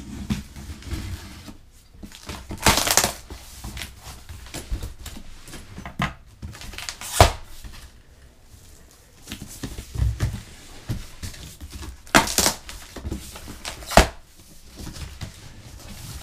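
Corrugated cardboard shipping box being opened by hand: packing tape slit and torn, with rasping scrapes and rustling of the flaps and several sharp knocks on the cardboard. Two longer tearing rasps stand out, one about three seconds in and one about twelve seconds in.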